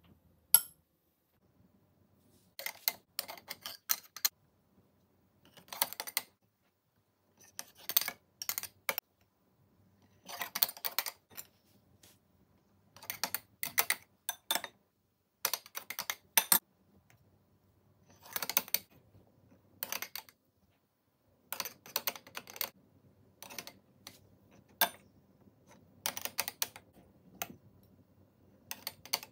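A metal spoon clinking and scraping against a ceramic bowl and the rim of an aluminium puttu maker tube. It comes in short clattering bursts every second or two as grated coconut and rice flour are spooned in, layer by layer.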